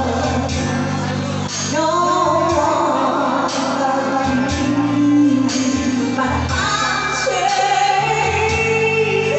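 A woman singing a slow pop ballad through a microphone and PA over instrumental backing, holding long notes.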